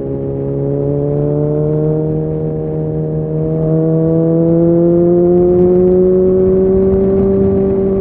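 Suzuki Bandit 650's inline-four engine pulling steadily under light throttle, its pitch rising slowly for about six seconds and then holding level, with a slight drop near the end.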